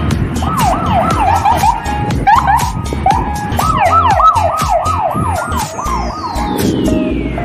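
Background dance music with a steady beat and a siren-like yelping sound that sweeps up and down about four times a second, in two runs, and a long falling whistle-like sweep starting about five seconds in.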